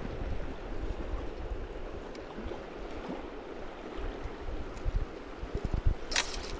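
Shallow river running over rocks: a steady rush of flowing water, with low rumbling thumps on the microphone and a brief sharp hiss about six seconds in.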